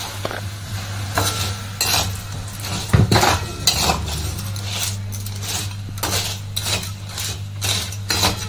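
A spatula scraping and knocking against a metal kadai, stirring lumps of rock sugar and date-palm jaggery with a little water to melt them, in a string of uneven strokes with one louder knock about three seconds in. A steady low hum runs underneath.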